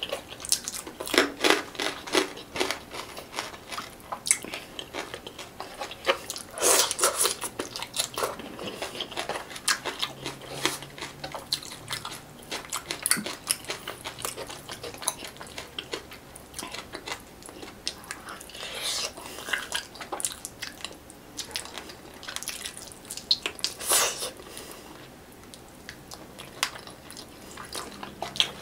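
Close-miked eating of fish by hand: wet chewing and smacking with crisp crunches now and then, as an irregular run of sharp clicks and mouth noises. The loudest come about a second and a half in, about seven seconds in and near the end.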